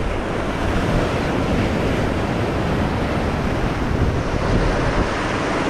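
Sea surf breaking and washing over the rocks of a jetty, a steady loud rush, with wind buffeting the microphone.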